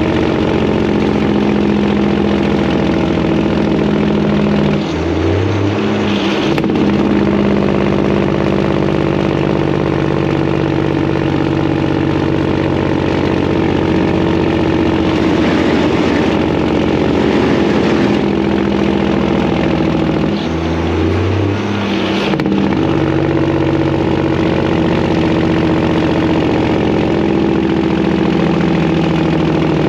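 Detroit diesel engine of a Freightliner semi-truck running loud and steady under way through its exhaust pipes. Its note breaks and drops briefly twice, about five seconds in and again about twenty seconds in, then settles again.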